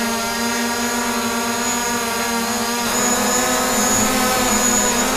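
DJI Mavic Pro quadcopter hovering close by: its motors and propellers give a steady buzzing hum with a thin high whine above it. About three seconds in, the hum shifts in tone and gets slightly louder, with the high whine coming out more strongly.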